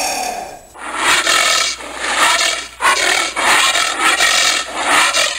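Giant anteater calling. A pitched call falls in pitch and fades out at the start, then comes a run of five noisy calls, each under a second long, about a second apart.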